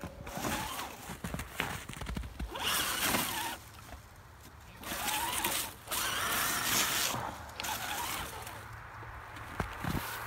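Footsteps crunching through snow in uneven bursts, with a quieter lull about four seconds in.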